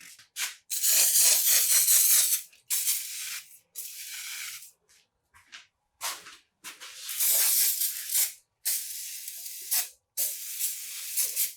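Repeated bursts of spraying hiss, about ten in all, from short puffs to one of about two seconds: a pressurised spray being squirted onto the engine parts to clean them.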